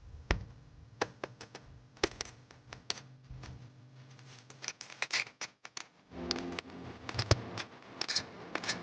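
Belongings being handled and moved about in a small space: scattered clicks, knocks and rustling. A low steady hum comes in about six seconds in.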